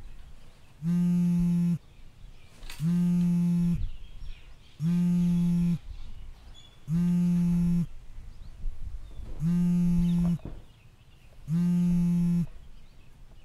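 A mobile phone buzzing on vibrate for an incoming call: six buzzes of one steady pitch, each just under a second long, about two seconds apart.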